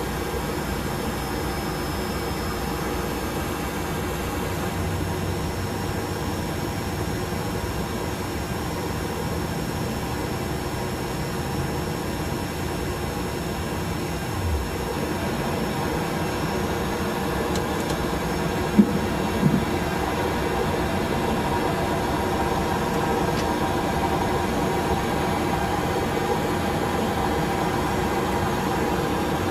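Airbus A320 cockpit noise: a steady hum and rush of airflow and engines, with a short low falling tone about halfway through and two short clicks about a second apart shortly after.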